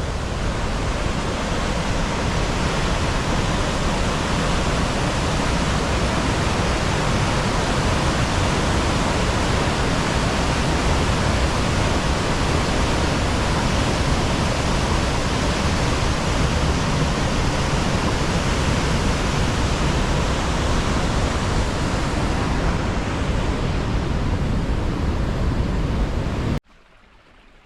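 Loud, steady rush of water from St. Mary Falls, a waterfall, cutting off suddenly near the end.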